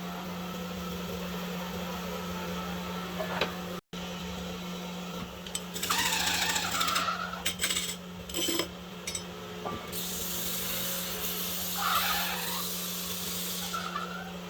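Hand-tool work on wood: scraping and rubbing strokes with a few light knocks, mostly in the second half, over a steady low hum.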